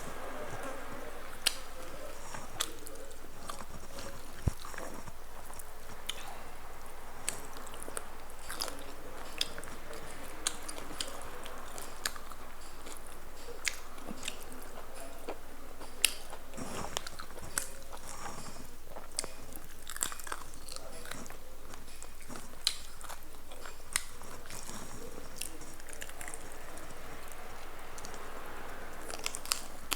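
A person chewing and biting crunchy food close to the microphone, with short sharp crunches scattered every second or so.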